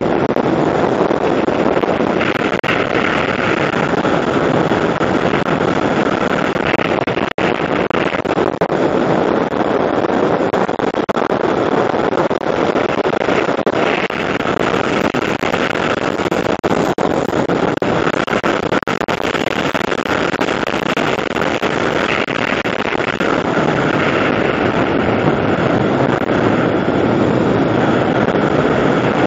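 Steady wind rushing over a helmet-mounted camera's microphone while riding at speed, mixed with the running noise of the vehicle. The sound drops out for an instant about seven seconds in.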